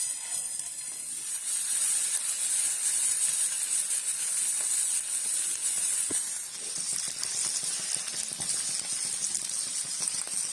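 Fish frying in hot oil in a pan: a steady, even sizzle.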